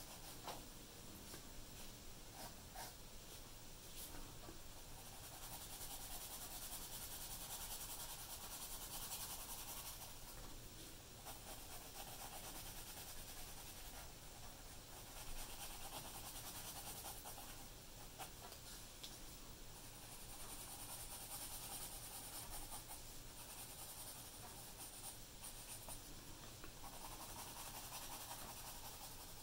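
Graphite pencil shading on drawing paper: faint, continuous scratching of short strokes, swelling and easing in stretches.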